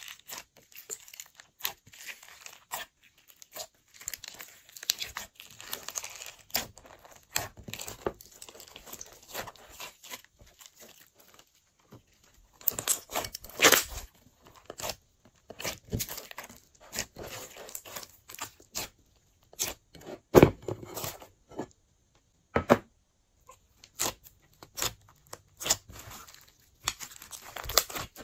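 Hands kneading, stretching and squeezing glossy slime mixed with add-in pieces, giving irregular sticky crackles, pops and squelches, with a few louder pops about halfway through and again a few seconds later.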